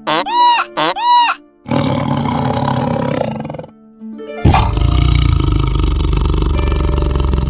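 Animal calls: two short calls, each rising and falling in pitch, then two long harsh calls. The second harsh call starts suddenly about four and a half seconds in and is the louder and deeper of the two. A steady music drone runs underneath.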